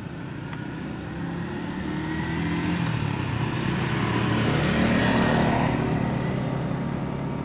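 Small single-cylinder petrol engine of a long-tail bamboo-raft motor running steadily, growing louder to a peak about five seconds in and then easing slightly.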